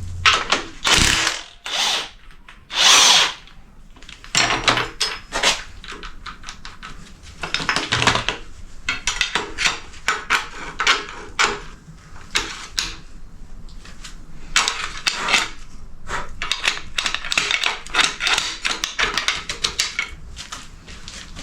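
Socket wrench ratcheting in quick runs of clicks with metal clanks of tools and parts, broken by a few short, harsher bursts of about a second each, while bolts are worked loose on the front of a Ford FE V8.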